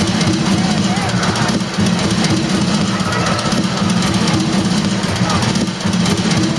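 Loud music accompanying the circus act, with voices mixed in.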